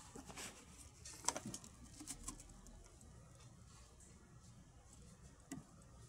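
Faint rustling and brushing as a hand handles the felt insulation jacket around an air-conditioner compressor, with a few short scrapes and taps in the first couple of seconds and one more near the end.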